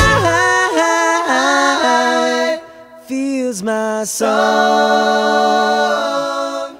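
Soundtrack music: a singing voice holding long notes with almost no accompaniment, no drums or bass. The level dips briefly about three seconds in.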